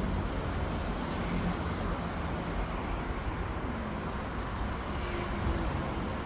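Fiat Pulse Abarth's 1.3 turbo four-cylinder engine running steadily through its factory exhaust, a low even rumble with no revving.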